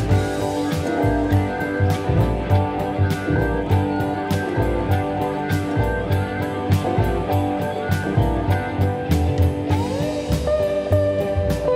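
Background music: a guitar-led track over a steady drum beat, with a sliding guitar note near the end.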